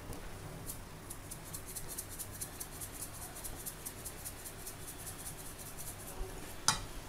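Salt being shaken from a plastic shaker over a glass bowl of chopped tomatoes: a run of light, rapid ticks, several a second, for a few seconds. A single sharp knock comes near the end.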